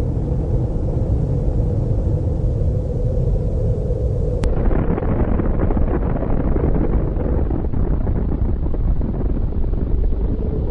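Continuous deep rumble of an explosion, the drawn-out roar laid on footage of an atomic bomb blast. About four and a half seconds in there is a brief click, and the rumble turns duller.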